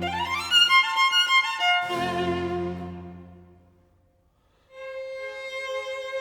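Background music: two rising melodic phrases that die away about four seconds in, then a moment of near silence before held notes start.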